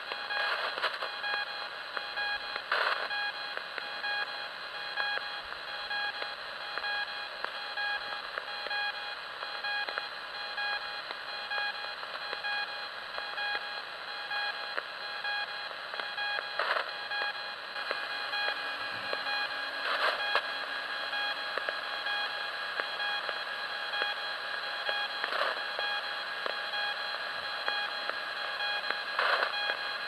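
Icom IC-R20 receiver in AM mode near 1.7 MHz giving out hiss with a steady buzzing tone and its overtones. This is the unidentified strange signal on the 160 m band. Static crackles break through about half a dozen times.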